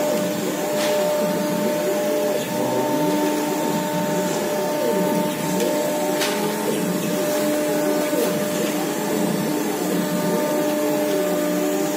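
A 1325 CNC router's 5.5 kW spindle runs with a steady whine as its bit engraves into a white board. A second whine sweeps up and down in pitch again and again as the head moves across the work.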